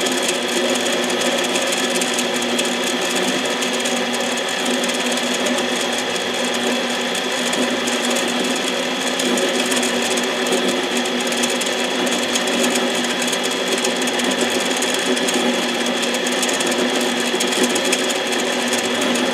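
Harbor Freight 7x10 mini lathe running steadily with a chainsaw piston spinning in its chuck: a steady motor and gear hum with a high whine.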